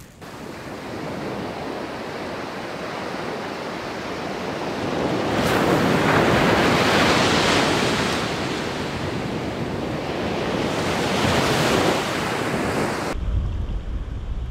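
Ocean surf breaking on a beach, a steady wash that swells twice as waves break and run up the sand. Near the end it switches to low wind buffeting on the microphone.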